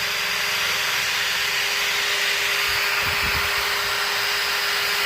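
Electric drill running at a steady speed, its motor giving an even whine over a hiss.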